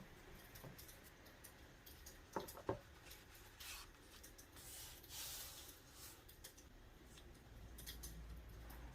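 Quiet sounds of hands working with stickers and paper: two sharp light clicks about two and a half seconds in, then two soft hissing rubs, over faint scattered crackles of a wood fire.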